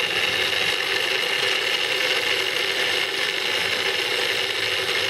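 Electric mini food chopper's motor running steadily at one even pitch, its blade chopping parsley leaves.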